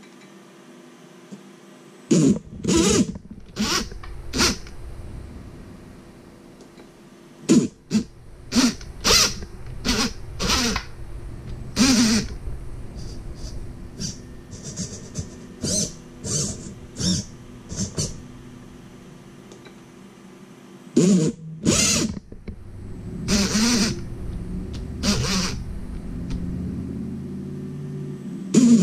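Axial Capra 1.9 RC rock crawler's electric motors run in a long series of short bursts, about two dozen, with two longer pauses, as the drive and steering are tested from the transmitter.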